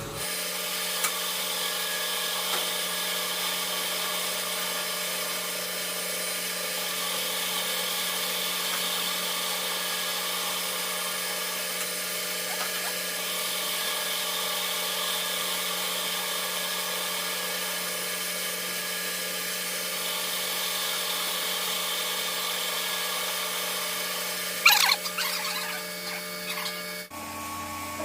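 Metal lathe running: a steady machine hum with a hiss above it, and a sharp clatter about 25 seconds in.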